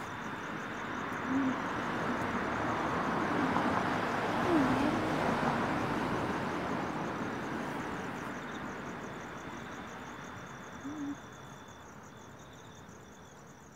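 A vehicle passing by outdoors at night: its road noise swells to a peak about four seconds in and then fades slowly away. Crickets chirp steadily underneath.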